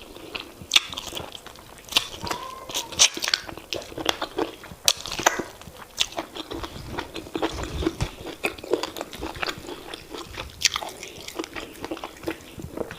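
Close-up eating sounds: chewing and wet mouth smacks from eating oha soup with semolina fufu, with many irregular sharp clicks.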